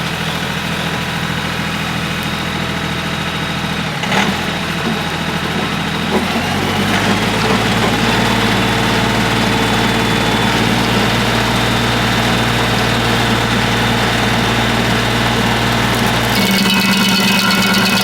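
Kioti CK3510 compact tractor's diesel engine running steadily. Its speed steps up about seven seconds in, and the sound changes again near the end.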